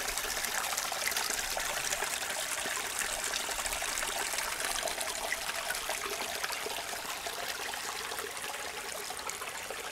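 Small rocky creek trickling over rocks: a steady hiss of running water that grows slightly fainter near the end.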